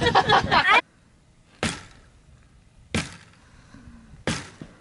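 Hatchet chopping into a standing dead tree trunk: three sharp strikes, evenly spaced a little over a second apart.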